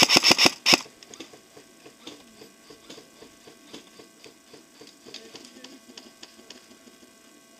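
Airsoft gun firing a quick string of shots, about seven a second, stopping under a second in; after it, faint scattered clicks and ticks.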